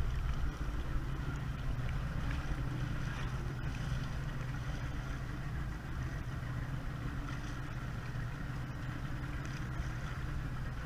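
A motorboat's engine running steadily as a low hum, under wind and water noise.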